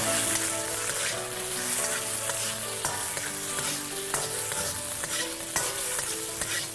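Prawns sizzling in hot oil in a wok as a metal ladle stirs them, with occasional scrapes and clinks of the ladle against the wok.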